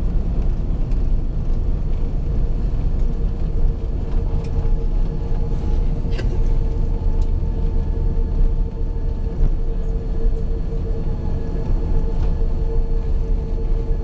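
Cabin noise inside an Airbus A340-600 moving on the ground after landing: a steady low rumble with a steady engine hum that grows a little stronger about four seconds in.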